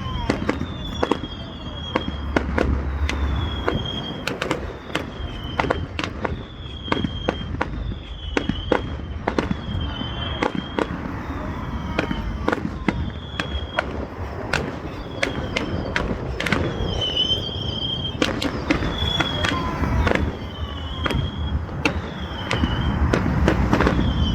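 Fireworks display: a dense, continuous run of sharp cracks and bangs, with a short high whistle recurring about once a second.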